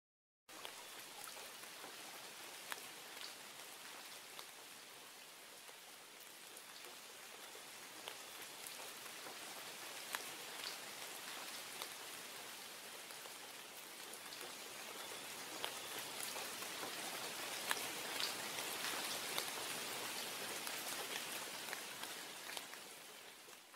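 Rain sound effect: a steady hiss of rainfall with scattered single drops ticking through it. It starts about half a second in, grows gradually louder, and dips just before the end.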